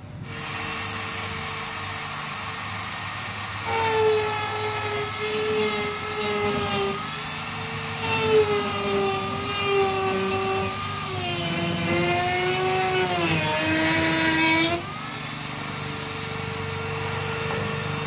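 Dremel rotary tool with a cut-off wheel running at top speed with a steady high whine, then cutting into the freezer's metal wall and plastic trim from about four seconds in until near fifteen seconds, its pitch wavering and dropping under the load. It then spins free again at the higher, steady pitch.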